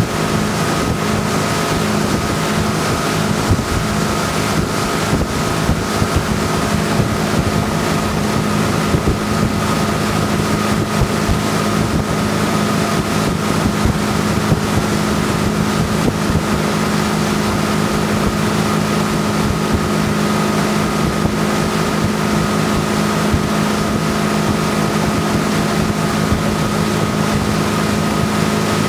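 Tow boat's engine running at steady speed with a constant hum, over the rush of the wake and wind buffeting the microphone.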